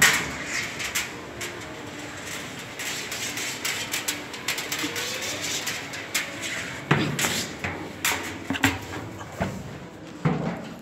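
A rider sliding down an enclosed tube slide with a phone in hand: a continuous rubbing rush of the body on the slide, broken by irregular knocks and thumps, the heaviest clusters about seven and eight seconds in.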